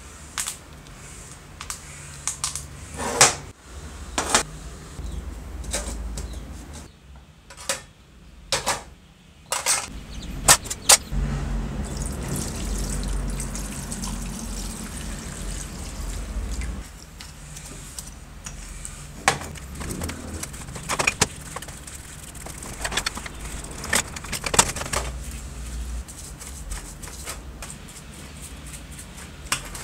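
Hand cleaning of greasy aluminium jigsaw parts: a wooden stick scraping grease out of the housing, sharp clicks and knocks as the parts are handled and put in a tray, then cleaning liquid poured into the tray for several seconds, and near the end a bristle brush scrubbing the parts in the liquid.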